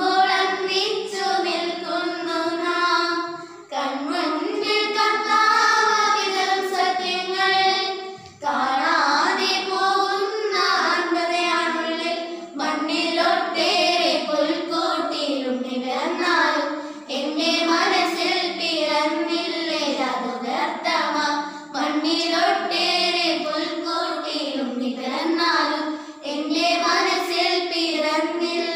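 A group of young girls singing a song together, unaccompanied, with two brief breaks between phrases in the first nine seconds.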